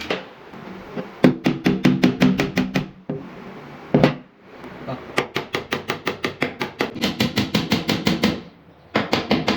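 Rapid, evenly spaced sharp taps, about seven a second, in three runs with a ringing pitch under them, and a single louder knock about four seconds in.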